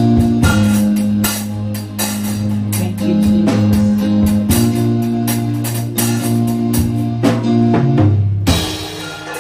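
Electronic keyboard playing sustained chords over a steady drum beat. The chords change a few times, and the music fades near the end.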